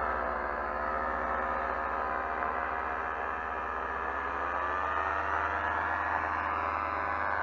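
An engine running steadily, its pitch slowly falling, rising and falling again as the revs change.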